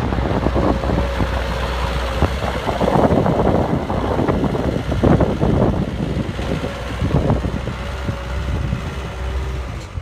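JCB Robot skid steer loader's diesel engine running steadily as the machine drives and turns across gravel, with irregular knocks and rattles throughout.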